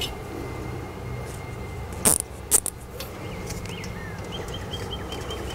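Steady outdoor background noise with faint, short, high insect chirps, broken by two short sharp clicks about two seconds in.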